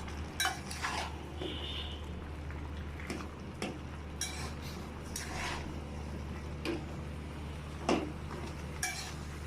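A cooking utensil scraping and knocking against a pot as taro stolons, shrimp and jackfruit seeds are stirred together, in scattered strokes with the loudest knock about eight seconds in. A steady low hum runs underneath.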